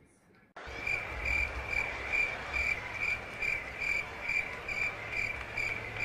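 Crickets-chirping sound effect, the stock 'awkward silence' gag: a high, even chirp repeating a little more than twice a second over a steady hiss, starting about half a second in.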